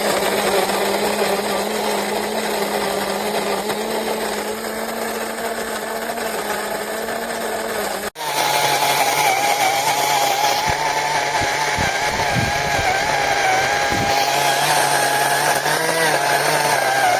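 Wancle flat burr electric coffee grinder's motor running steadily. About eight seconds in the sound breaks off for an instant; after that the hum is lower, with a higher whine above it.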